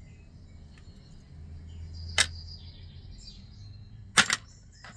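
Small metal jewelry pieces clicking as they are set down in a hard tray: a sharp click about two seconds in, a quick double click about four seconds in, and a fainter tick just before the end.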